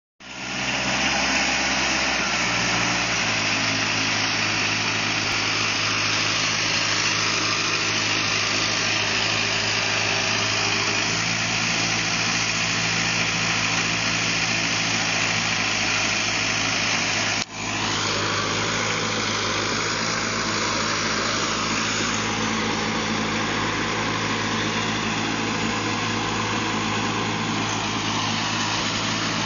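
Schilter 1800 mountain transporter's engine running steadily at an even pitch, with a brief break about seventeen seconds in.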